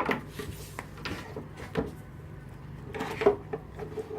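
Leather reins and a metal bridle bit being handled as the reins are buckled onto the bit: several light knocks and clinks of metal and buckles, the loudest a little over three seconds in.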